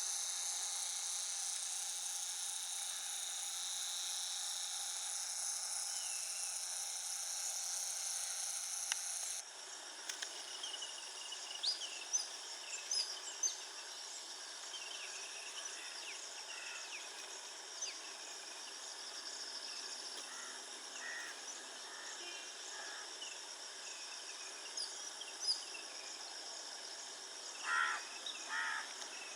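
Outdoor ambience of insects buzzing in a steady high chorus. About a third of the way through, the sound changes abruptly to a fainter insect hum with many short bird chirps and whistles, and a louder double call near the end.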